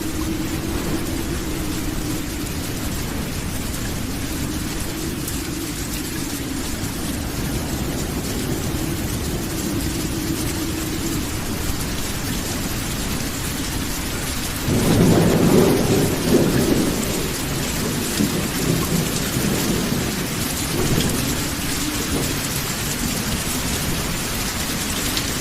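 Steady rain with low rolling thunder underneath; about fifteen seconds in a loud thunderclap breaks and rumbles on for a few seconds.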